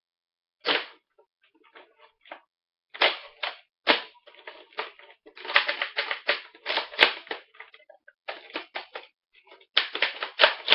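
Bursts of quick plastic clicks and rattles from a Nerf blaster being handled and test-fired. There is a sharp snap about a second in, then clusters of clicking, the densest around the middle and near the end.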